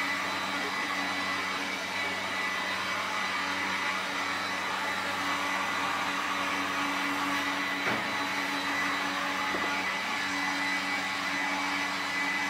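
Handheld electric heat gun running steadily: an even rush of blown air with a constant motor whine, the hot air blowing loose black sesame seeds across bread dough.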